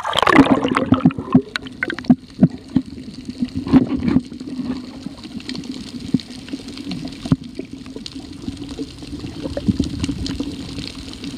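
Seawater heard from a camera that goes underwater: a splash as it plunges in at the start, then muffled underwater sound, a steady low drone with irregular clicks and knocks.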